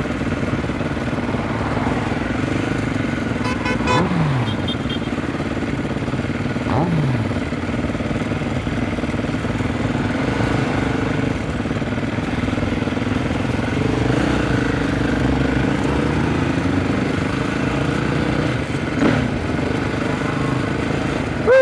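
Husqvarna SMR 510 supermoto's single-cylinder engine running steadily while ridden slowly, with two short falling tones about four and seven seconds in.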